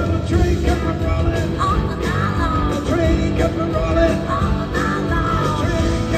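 Live rock band with several electric guitars, keyboards and drums playing a fast rock and roll number, with sung vocals over it, as heard from the audience.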